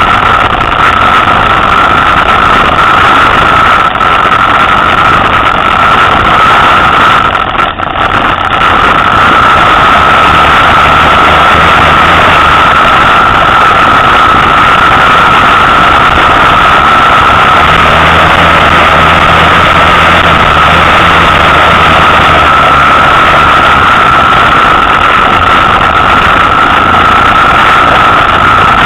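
Motorcycle engine running on a trail climb, recorded very loud and close to overloading, with a steady high drone throughout. A deeper hum comes and goes in the middle, and the sound dips briefly about eight seconds in.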